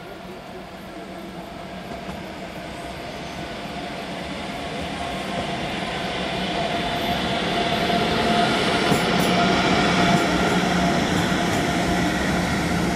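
Electric-hauled InterCity train rolling along the platform, wheels and coaches running on the rails with a steady traction hum. The sound builds steadily, peaks about two-thirds of the way through, then eases a little.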